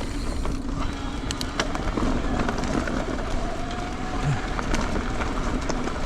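Mountain bike rolling fast down a dirt and rock trail: a steady rumble of tyres and wind, broken by many short clicks and rattles from the bike going over rough ground.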